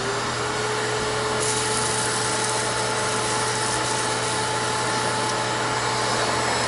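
Shop vac motor running with a steady whine while its hose nozzle sucks metal chips off a milled part, with a brighter rush of air and chips for a couple of seconds. It is switched off at the end and its pitch starts to fall as it winds down.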